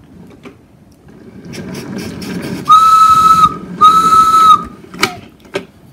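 A whistle blown in two long, steady toots of about a second each, breathy and high, sounding a train whistle for the toy trains. Under it is the low rumble of wooden toy trains being rolled along a wooden track, and two sharp knocks come near the end.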